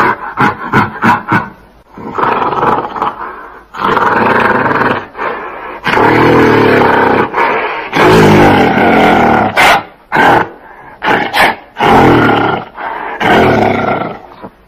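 Gorilla vocalising. A quick run of short calls gives way to several long, loud calls, the longest lasting about three seconds near the middle, and then more short calls follow.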